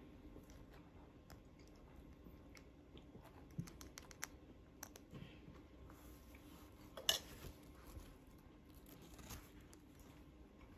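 Faint chewing of a breaded fried fish sandwich, with small crackles and a sharper click about seven seconds in.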